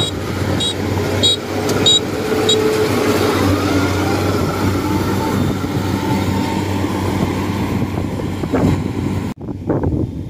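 Kubota DC-70 rice combine harvester running steadily under load while cutting and threshing, with a constant diesel hum and a short high squeak repeating about every two-thirds of a second for the first two and a half seconds. About nine seconds in the machine sound cuts off abruptly, giving way to fainter gusts of wind on the microphone.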